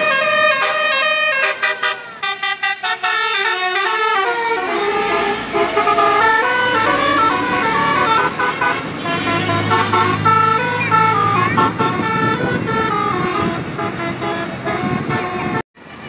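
Tour bus's telolet basuri musical horn playing a tune, note after note at shifting pitches, with a run of quick short toots about two seconds in. A bus engine runs low beneath it partway through, and the sound cuts off abruptly near the end.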